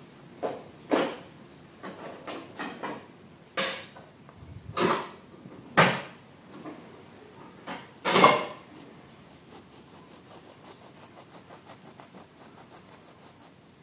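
Knocks and thuds of a loaf of bread, its slices and a knife being handled on a cutting board, the loudest about eight seconds in. After that comes the quick, even rasping of a knife sawing through the loaf.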